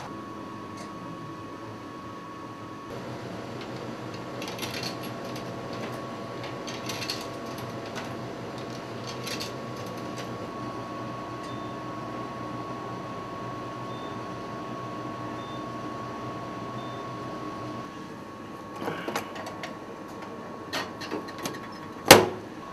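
Vending machine running for about fifteen seconds with a steady mechanical hum and a few clicks, then stopping. It is followed by scattered clatter and one loud knock near the end as a hand reaches into the machine's opening.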